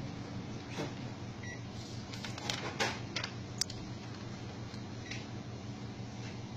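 Steady low hum of a Ricoh MP171/201 office copier running, with a few short clicks over it.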